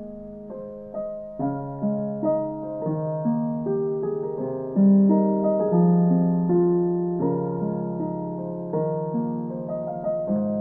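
Background piano music: a gentle melody of struck notes over held chords, each note fading after its attack.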